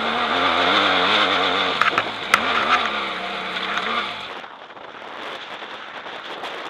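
BMW F800GS parallel-twin engine running under load, its pitch wavering up and down with the throttle, with a few sharp knocks about two seconds in. Just past four seconds the engine sound drops out, leaving a softer hiss of wind noise and rustling.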